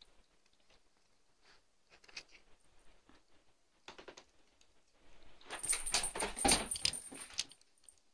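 A cat playing with a small sparkly silver ball makes soft scattered taps and rustles. About five and a half seconds in comes a two-second run of rapid rattling clicks with a high ringing tone over them, the loudest part.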